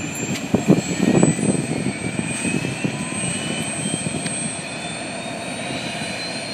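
Turbine helicopter running on the ground: a steady engine sound with a thin whine that rises slowly in pitch. A few rough low thumps in the first second or so.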